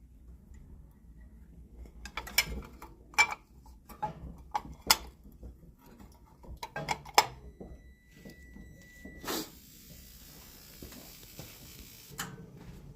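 Sharp metallic clinks and knocks, about a dozen over several seconds, of tools and metal parts being handled. About nine seconds in, a brief thin whistle gives way to a steady high hiss lasting a few seconds, then one more knock.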